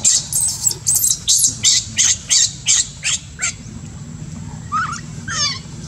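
Newborn macaque screaming in distress: a quick run of short, high-pitched shrieks, about three a second, that stops about three and a half seconds in, then two wavering cries near the end.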